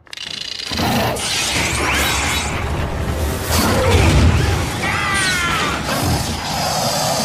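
Action sound effects from an animated giant-robot fight: mechanical whirring with rising and falling whines and crashing impacts, over background music.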